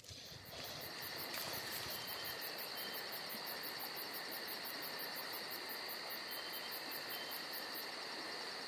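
Insects chirring: a steady high buzz with a fast, even pulse of about three or four a second, coming up within the first second.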